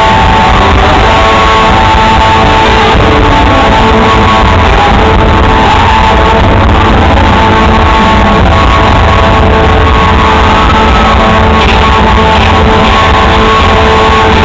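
Rock band playing live: electric guitars over drums, loud and overdriven, the recording pinned near full scale throughout.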